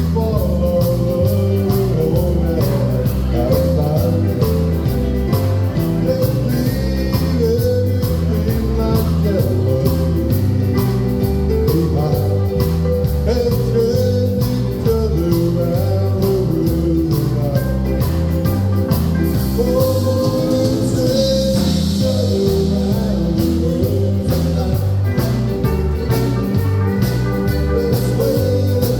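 Live band playing an upbeat country song, amplified through a PA, with a singer.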